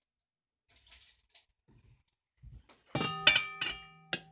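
A glass wine bottle clinking against the rim of a stoneware slow-cooker crock. After faint handling noises, four sharp clinks with a ringing tone come about three seconds in, just before the wine is poured.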